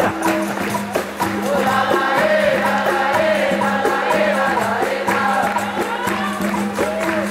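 Capoeira music: a group singing with tambourine (pandeiro) percussion and steady hand clapping.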